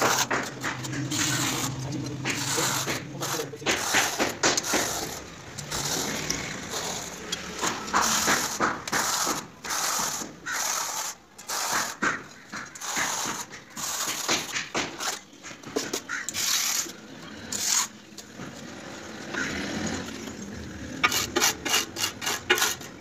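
Steel trowel scraping and spreading cement mortar on a masonry wall in irregular strokes, with a quick run of clicks near the end.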